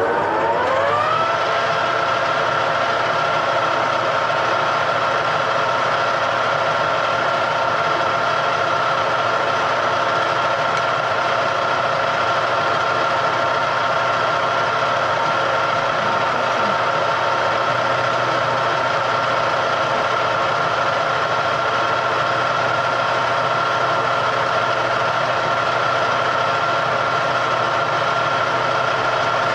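Electric motor of a workshop machine tool winding up to speed, its whine rising over the first second or so, then running at a constant speed with a steady whine and hum.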